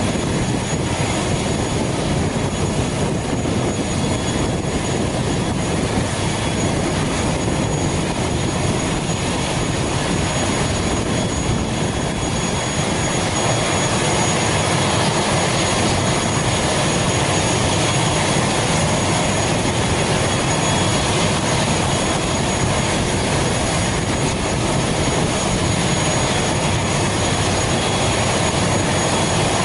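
A parked ATR 72's Pratt & Whitney PW127 turboprop running steadily on the ground: a continuous roar with a thin high whine on top. This is typical of an engine kept running in hotel mode with its propeller braked.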